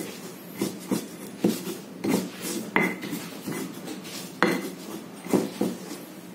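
Stone pestle (ulekan) grinding pepper, coriander, candlenuts and nutmeg on a flat stone mortar (cobek). It makes irregular gritty scraping and knocking strokes, roughly one or two a second.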